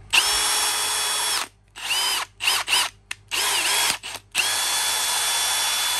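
Milwaukee M18 FUEL 2804 brushless hammer drill/driver run on the trigger in several pulls: a run of about a second and a half, three quick blips, a shorter run, then a long steady run from a bit past four seconds. The motor whine rises as each pull spins it up and falls as it winds down.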